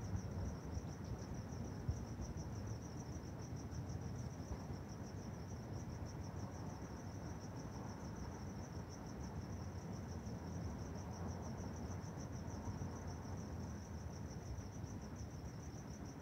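Crickets chirping in a steady, rapidly pulsing high trill, over a faint low background rumble.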